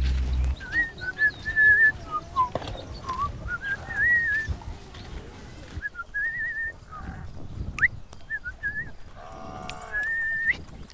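Birds calling with short, high whistled notes and little glides, while about nine seconds in a farm animal gives a brief call.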